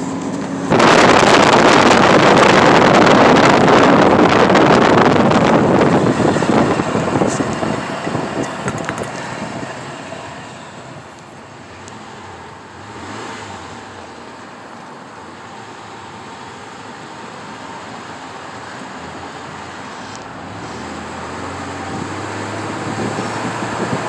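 Wind rushing and buffeting the microphone through an open car window while driving, with road noise under it. It comes in suddenly and loud under a second in, then eases over the next few seconds to a steadier, quieter rush.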